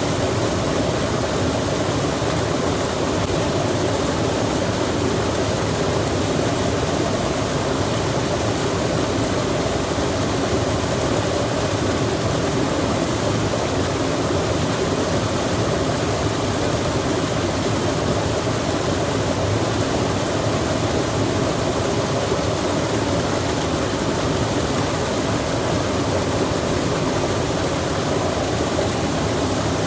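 Steady rushing of running water, even and unchanging, with no separate sounds standing out.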